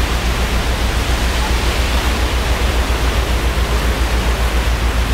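Boat engine running with a low, rapid, even pulse under a loud steady rush of propeller wash churning the water, as a tender boat manoeuvres alongside a catamaran.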